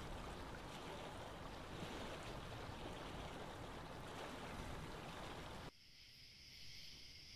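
Steady rushing of a flowing stream, which cuts off abruptly a little under six seconds in. A faint, steady chirring of night insects such as crickets follows.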